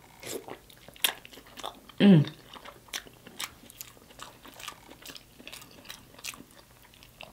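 Close-miked eating: wet chewing and lip-smacking clicks while a mouthful of sauce-covered food is chewed, with a short vocal sound about two seconds in.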